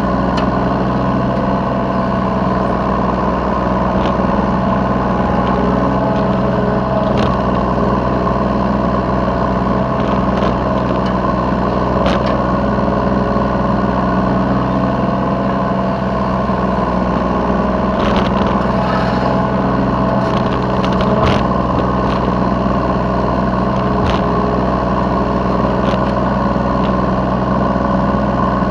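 Yanmar B3 Sigma mini excavator's diesel engine running steadily, heard from the operator's seat while it works loading a truck, with scattered short knocks and clanks from the working machine.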